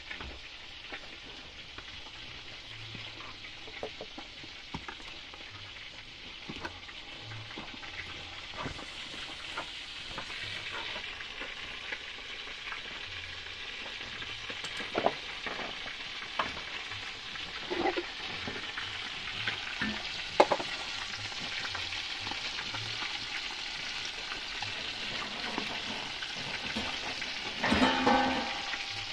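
Whole mojarras (tilapia) frying in hot oil in a pot: a steady sizzle with scattered pops, slowly getting louder, with a brief louder flare of sizzling near the end.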